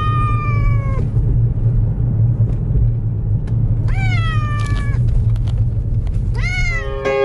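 Ragdoll cat giving three long, drawn-out meows, each rising and then slowly falling in pitch, over a steady low rumble.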